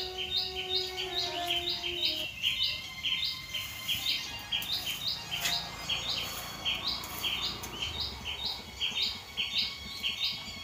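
A bird chirping over and over, an even run of short high chirps about two or three a second. A few held musical notes sound under it in the first two seconds.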